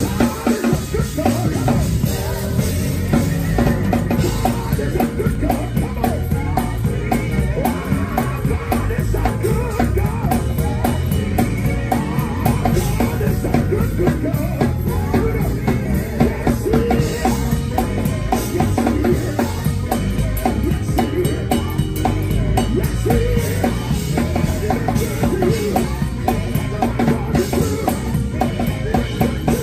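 Acoustic drum kit played through busy grooves and fills, kick, snare and cymbals, within live band music with some singing.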